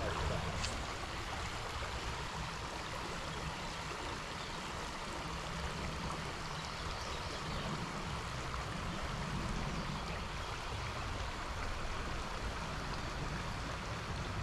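A small trout stream's water running steadily over rocks.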